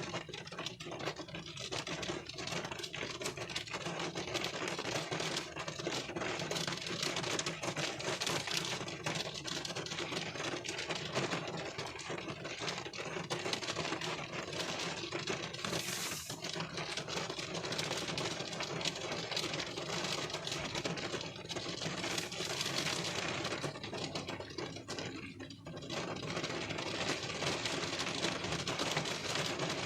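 Rain falling on a car windshield, heard from inside the car: a dense, even stream of small drop taps over a hiss, briefly easing about 25 seconds in.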